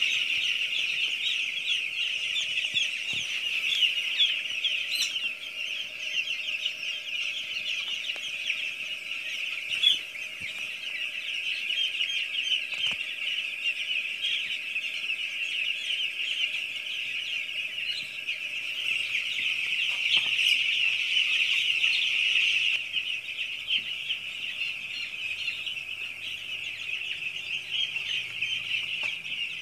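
Hundreds of chicks peeping at once: a dense, continuous, high-pitched chorus of overlapping chirps. A single brief knock sounds about ten seconds in.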